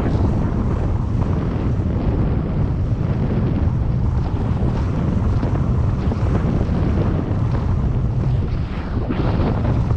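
Wind buffeting the microphone of a camera riding along a road: a steady, loud, low rumble with a brief stronger gust about nine seconds in.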